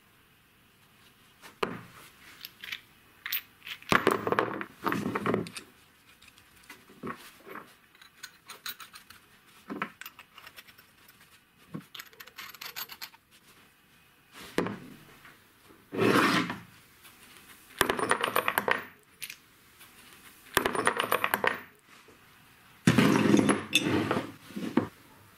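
Brass pipe fittings being handled, screwed together and set down on a wooden workbench: scattered metallic clinks and knocks, with several scraping stretches of about a second each.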